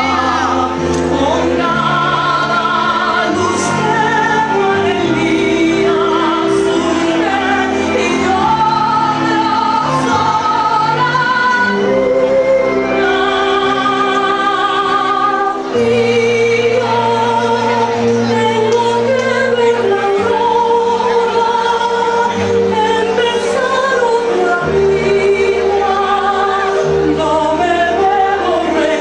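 A musical-theatre song: a voice holding long, wavering notes over a sustained orchestral accompaniment.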